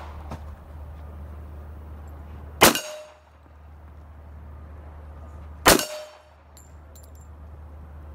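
Two shots from a Les Baer custom pistol fired offhand, about three seconds apart, as part of a string of shots for a group. Each shot is a sharp crack followed by a short ring.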